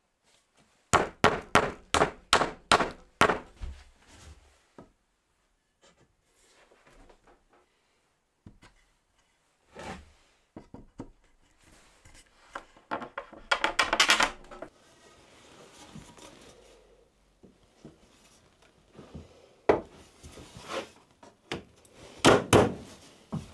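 Wooden dowels being tapped into glued holes in pine timber, a quick run of sharp wooden knocks at about three to four a second. Then the dowelled pine pieces are pushed and knocked together into a frame, with wood scraping on wood and a few more knocks near the end.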